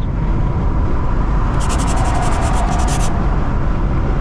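Car driving at speed on a sealed highway: a steady rumble of tyres and engine. About halfway through, a second or so of fast, even ticking hiss rides over it.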